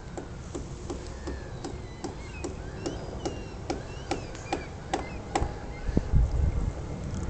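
A regular run of sharp clicks, about two to three a second, with small birds chirping. From about six seconds in, irregular low thumps take over as the loudest sound.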